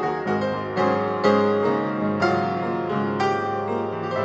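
Background piano music, with notes and chords struck every half second to a second and left to ring.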